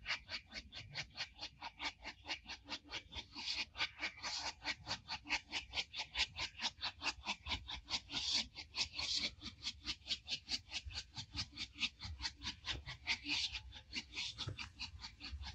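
Steam locomotive working hard as it hauls a passenger train. Its exhaust beats come as a steady, rapid chuffing, about four or five a second.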